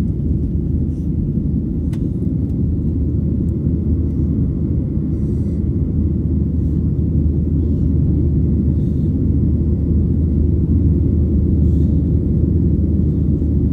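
Steady low rumble of a Boeing 737's jet engines heard inside the passenger cabin, growing slightly louder over the seconds.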